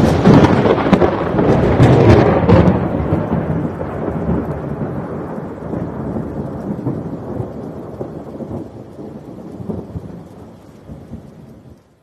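Thunder sound effect: a loud crash with crackles over the first few seconds, then a rumble that slowly fades and stops abruptly near the end, with rain.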